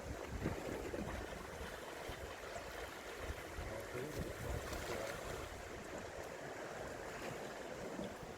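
Seawater washing and lapping against shore rocks, a steady rushing wash.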